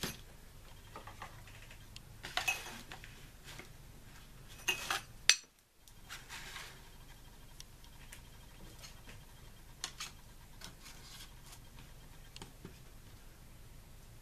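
Glass Petri dishes being handled and set down on a tabletop: scattered clinks and light knocks, the sharpest clink about five seconds in, then only faint occasional ticks.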